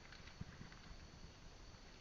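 Near silence: a faint steady hiss with a few soft taps or knocks, the clearest about half a second in.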